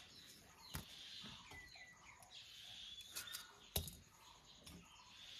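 A few light, sharp clicks as sliced chilli pieces fall into an empty metal wok, over quiet outdoor ambience with faint birds chirping.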